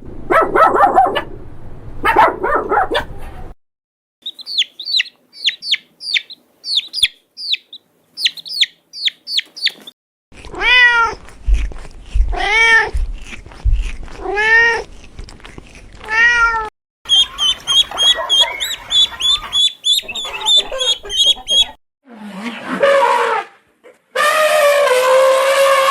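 A run of animal calls in short clips cut one after another. Rows of quick high chirps come first. Then a cat meows four times, about two seconds apart, each meow rising and falling. More rapid high chirping follows, and longer drawn-out calls come near the end.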